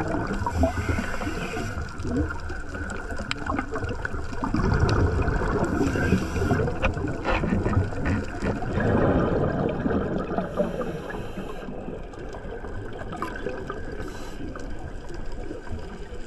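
Underwater sound of a scuba diver breathing through a regulator: a brief hiss on each inhale, roughly every five seconds, alternating with a rumble and gurgle of exhaled bubbles.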